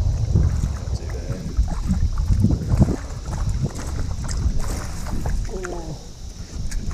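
Wind rumbling on the microphone, with irregular knocks and clatter as fishing gear and a landing net are handled on the boat.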